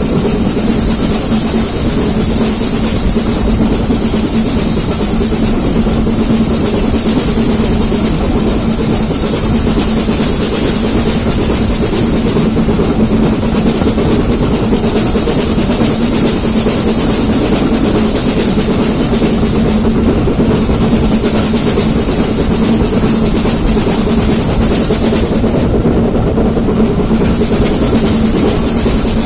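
Steam-hauled heritage train running along the line, heard from an open window just behind the locomotive: a steady, loud rumble of wheels on rail under a continuous high hiss, with no let-up.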